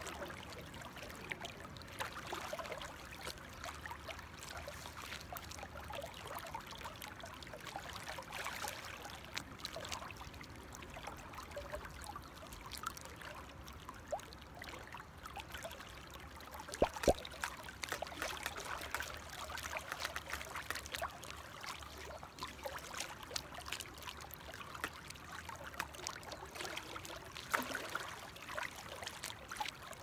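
Shallow river riffle flowing and trickling steadily, with small splashes and crackles and a few sharper clicks, the loudest about 17 seconds in.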